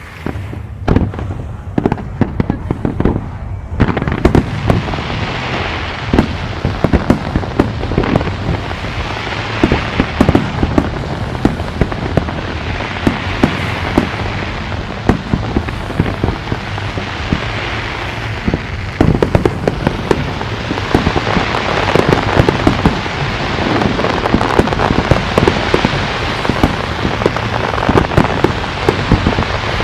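Aerial fireworks display: a rapid run of shell bangs, joined about four seconds in by dense crackling that comes and goes in waves. It grows thicker and louder over the last third.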